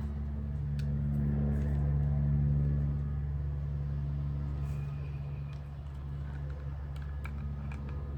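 A steady low motor hum, like an engine running nearby, swelling a little about two seconds in, with a few light clicks and taps over it.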